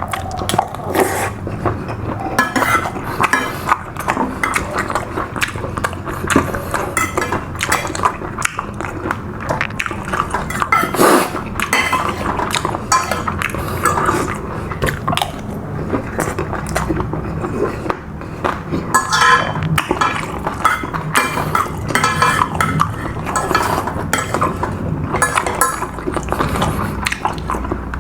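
Cutlery clinking and scraping against a plate during eating, many small clicks in a row.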